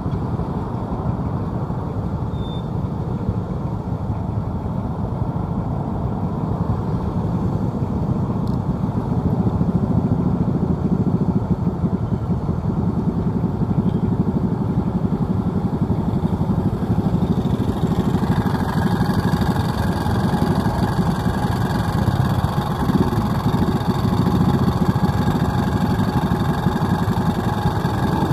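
Vehicle engine and road noise while driving in city traffic, a steady low rumble. From about eighteen seconds in a brighter hiss joins it.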